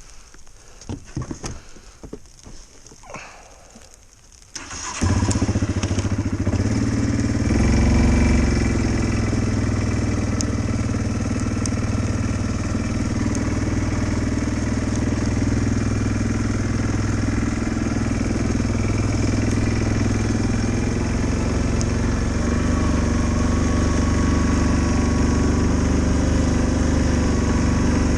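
A few faint clicks, then an engine starts about five seconds in and runs steadily at idle.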